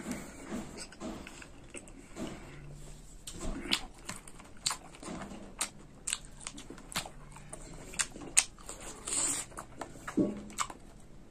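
Close-up eating sounds of fresh mulberries: wet chewing, lip smacks and sharp mouth clicks, scattered irregularly.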